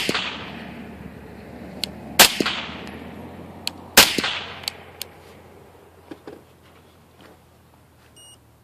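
Three suppressed 5.56 rifle shots from an 11.5-inch AR-15 fitted with a homemade SD Tactical 7.6-inch titanium suppressor, about two seconds apart, the first right at the start, each followed by a fading echo. Lighter clicks fall between the shots, and a short electronic beep sounds near the end.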